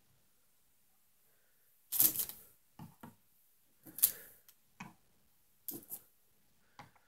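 Cast aluminium ingots being picked up and set down on a plastic kitchen scale. It is a series of hard clacks and lighter knocks, with the two loudest about two and four seconds in.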